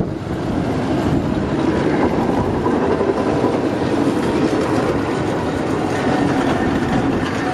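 Vintage tram with a string of trailer cars rolling slowly past, its wheels running on the rails with a steady noise.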